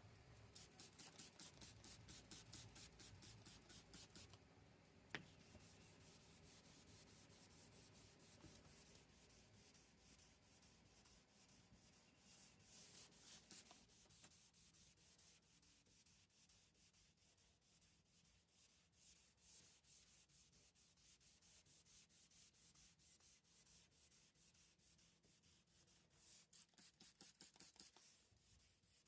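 Fine-grit sandpaper rubbed back and forth by hand over a boat's fiberglass gel coat: faint, quick scraping strokes of about three a second that come in spells, with one sharp click about five seconds in.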